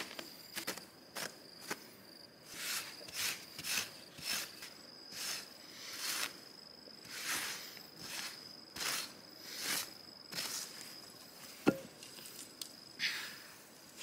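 A hand-held blade chopping and scraping into dry dirt in repeated strokes, about one or two a second, with one sharp knock near the end that is the loudest. A steady high-pitched insect drone runs underneath.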